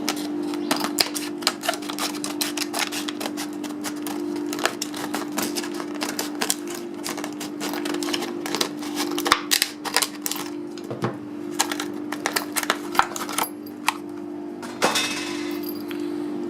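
A Blackspur padlock and its keys being handled, with many small metallic clicks and clinks, over a steady low background hum.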